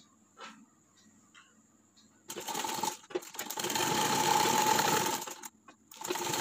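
A sewing machine stitching a seam in short runs. After a couple of seconds of quiet fabric handling with a few faint clicks, the machine starts about two seconds in. It stops briefly twice, then runs on.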